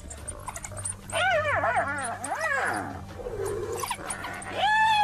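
High-pitched twittering and squealing calls from African wild dogs mobbing a spotted hyena: a run of short calls that rise and fall from about a second in, then a longer falling call near the end.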